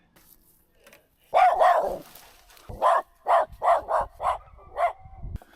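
A dog barking high and sharp: two calls, then a run of six short barks at about two a second.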